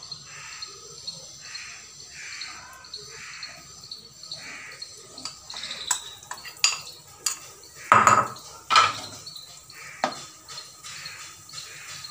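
A spoon scraping and clinking against a glass bowl and a nonstick kadhai as arrowroot-coated sweet corn is tipped into hot oil, with several sharp clicks and two loud knocks about eight seconds in. The corn sizzles in the oil on a low flame.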